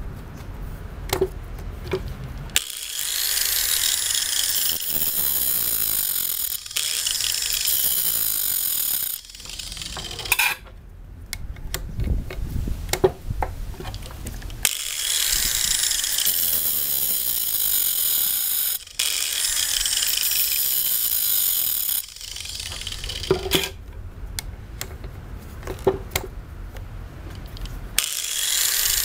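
Angle grinder grinding the cutters of a chainsaw chain on the bar, in three spells of several seconds each. Between the spells are quieter gaps with sharp clicks and knocks.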